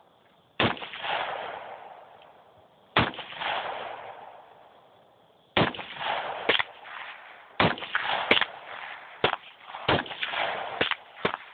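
AR-15 rifle firing semi-automatic single shots, each a sharp crack trailing off in an echo. The first two come a couple of seconds apart, then about eight more follow at roughly one a second from about halfway in.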